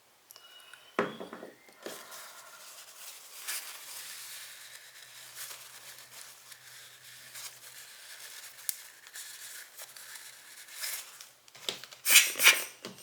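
Close-up handling and wiping while cleaning a lens's front glass element: a knock about a second in, then steady scratchy rubbing, with a few louder rustling scrapes near the end.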